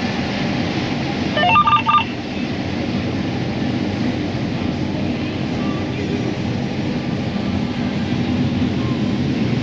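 Steady drone of running farm harvest machinery heard from inside the cab, with a quick series of electronic beeps from the cab's controls about a second and a half in.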